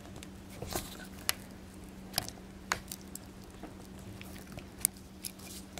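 Jeweler's screwdriver tip scraping and clicking against a small brass crimp sleeve as it is wedged into the seam to spread it: a few light, irregular metal ticks and scrapes. The crimp is still tight and has not yet given way.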